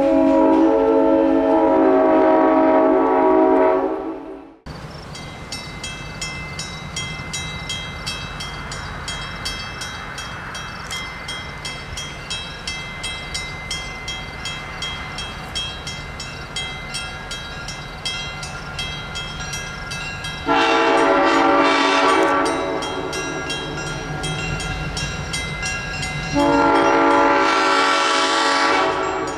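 Diesel locomotive air horn sounding a long chord-like blast, then, after a cut, a railroad crossing bell ringing steadily. The horn of the approaching train sounds two more long blasts, about twenty seconds in and again near the end, as it nears the crossing.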